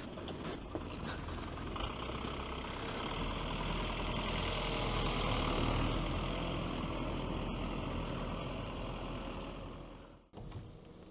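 The Veter all-terrain vehicle's 2.4-litre turbodiesel engine running, growing louder toward the middle and fading again, then cut off suddenly near the end.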